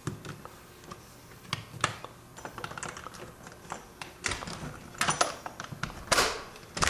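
Irregular sharp clicks and taps, sparse at first and then louder and closer together from about four seconds in.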